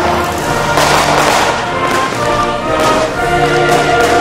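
Background music with held notes and chords, mixed with aerial fireworks bursting and crackling: a burst about a second in and more around three seconds in.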